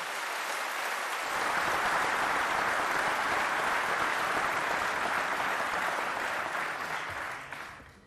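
Large assembly applauding, many hands clapping at once in a sustained round that builds in the first second and dies away near the end.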